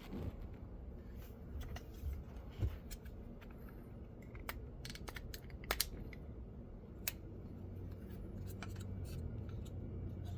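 Scattered small clicks and scrapes of a screwdriver prying a plastic car window switch out of its case. A low steady hum comes in near the end.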